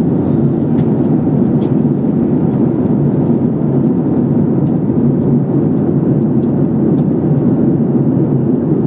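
Steady low rumble of a Boeing 737's engines and rushing air, heard inside the passenger cabin, with a few faint ticks.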